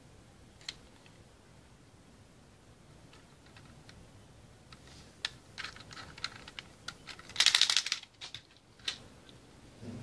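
Small hard-plastic clicks from a Kamen Rider Build SG Full Bottle toy being handled, its cap turned in the fingers: one click about a second in, then scattered clicks building to a quick dense run a little past the middle, and one more click near the end.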